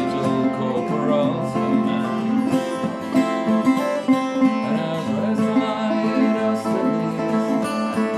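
A resonator guitar and a steel-string acoustic guitar playing a song together, plucked notes over strummed chords.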